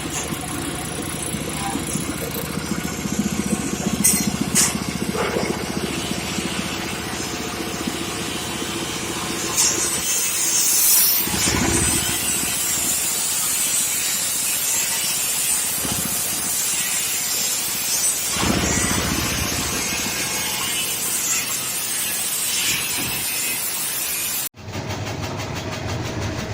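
Automatic tobacco-leaf shredding machine running, a steady mechanical noise with a hiss on top. It cuts off abruptly about two seconds before the end and resumes at once.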